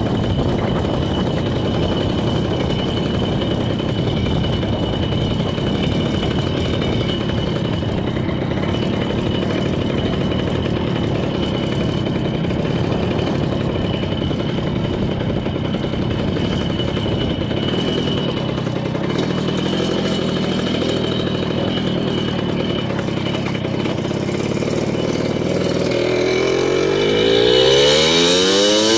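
Jawa moped's small two-stroke engine running under way through its dented exhaust, steady for most of the time; near the end the engine revs up, its pitch rising.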